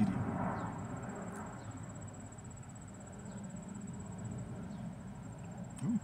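Steady high-pitched insect trill, cricket-like, over a low steady hum, with faint rustling in the first second.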